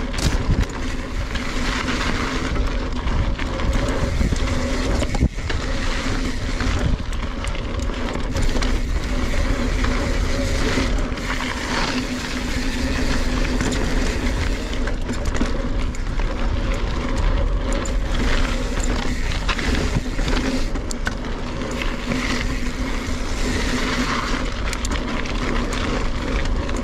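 NS Bikes Synonym mountain bike ridden fast down a dirt and gravel singletrack: tyres rolling and crunching, the bike rattling, and wind on the microphone, with a few sharp knocks as it hits rocks and bumps.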